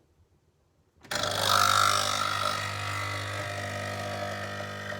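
Nespresso capsule machine's pump starting suddenly about a second in and running with a steady buzzing hum, loudest just after it starts, as it pushes hot water through the capsule to brew a standard espresso.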